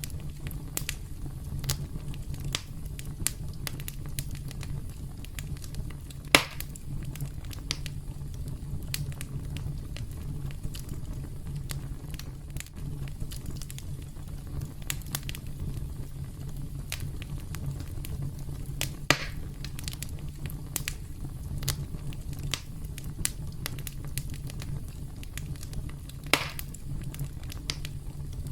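Campfire crackling steadily: a constant low rumble under a stream of small snaps, with three louder pops about six, nineteen and twenty-six seconds in.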